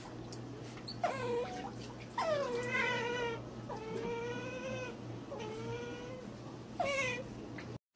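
A cat yowling five times in drawn-out, wavering meows. The second yowl is the longest, about a second. The sound cuts off abruptly near the end.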